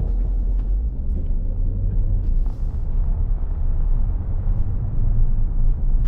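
Steady low rumble of a car driving, road noise heard inside the cabin.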